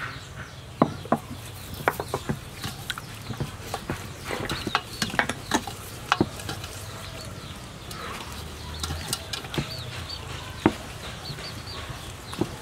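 Hands kneading and rubbing seasoning into raw whole chickens in a stainless steel bowl: irregular wet squelches and slaps, with a few sharper clicks.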